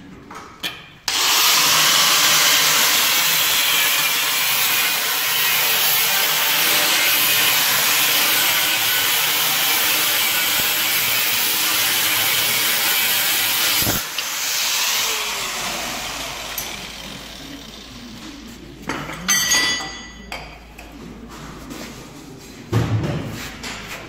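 Angle grinder with a thin cut-off disc cutting through a steel square-tube bracket on a car chassis frame: a loud, steady grinding from about a second in, which stops sharply after about thirteen seconds as the disc spins down. A few short metallic knocks follow near the end.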